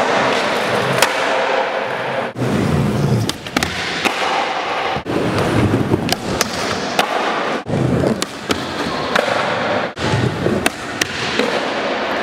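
Skateboard wheels rolling on smooth concrete, with sharp clacks from the board's tail pops and landings. The sound cuts off abruptly and restarts several times, as one short clip follows another.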